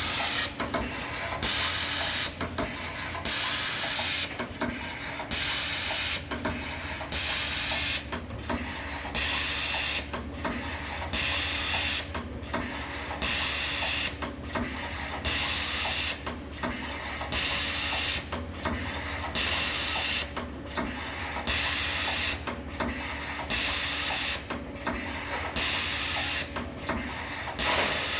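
Amada CTS-900NT CNC tapping machine running through its repeating tapping cycle: a steady machine hum with a short hiss about once every second and a quarter.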